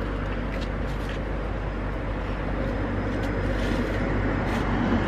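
Steady street traffic noise, with a constant low hum and a few faint clicks, growing a little louder near the end.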